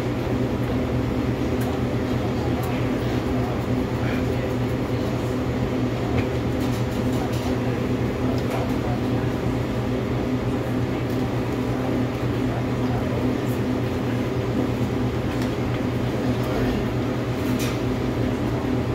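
Steady machine hum, a low drone of several held tones at an even level, with a few faint clicks over it.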